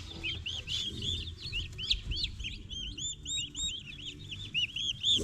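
Young turkey poults and chicks peeping constantly, many short, high arching chirps overlapping several times a second.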